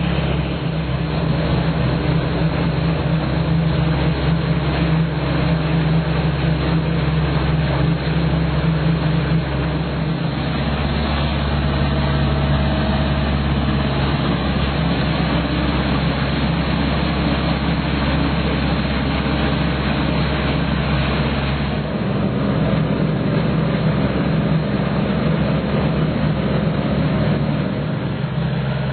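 Engine of an AlphaBoats FX10 aquatic weed harvester running steadily, its note shifting about three quarters of the way in.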